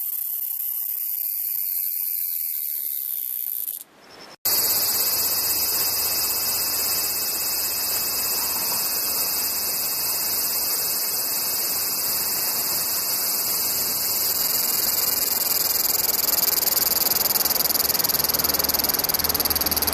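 Cicadas singing: a high steady buzz fades out about four seconds in, then after a brief break a different, louder cicada song starts, a dense shrill buzz that grows slightly louder near the end.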